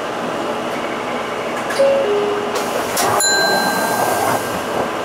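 Interior running noise of an Isuzu Erga Hybrid city bus on the move. About two seconds in, a short two-note falling electronic chime sounds; about a second later a click is followed by a held, ringing chime tone that stops just before the end.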